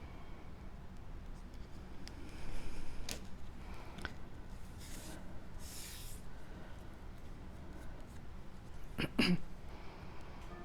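Cardstock pieces being handled and fitted together: paper rustling and sliding in a few short spells, with small clicks and a couple of sharp taps near the end.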